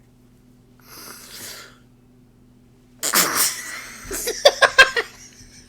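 A man's held-in laughter breaking out. A short breathy snort comes about a second in, then a sudden loud burst of laughter about three seconds in, which runs into a quick string of about six "ha" pulses.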